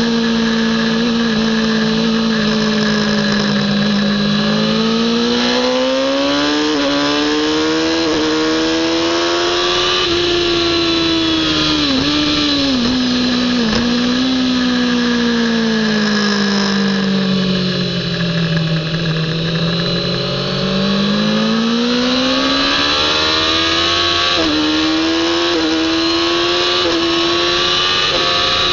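Kawasaki ZX-10R inline-four sport-bike engine under hard riding, heard from onboard. Its pitch climbs and falls with engine speed, with quick dips at gear changes, a long drop in revs midway as the bike slows, then a steady climb to high revs near the end.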